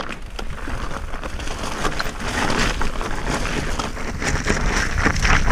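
Mountain bike rolling downhill over rough trail: tyres on the ground, many small knocks and rattles from the bike over bumps, and wind on the microphone. It grows louder as the bike picks up speed.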